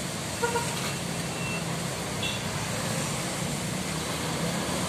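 Street traffic noise: a steady hum of vehicle engines on the road, with one short beep about half a second in.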